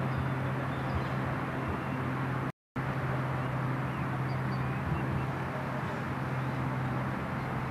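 Steady outdoor background noise with a constant low hum, cutting out completely for a moment about two and a half seconds in. A couple of faint high chirps sound a little past the middle.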